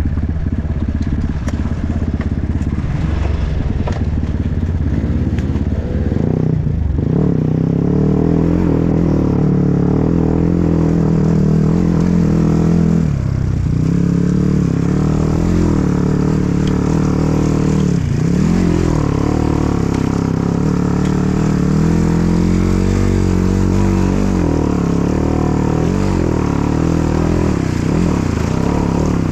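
Dirt bike engine under way off-road, its revs rising and falling continually with the throttle, and dropping briefly several times as the rider backs off.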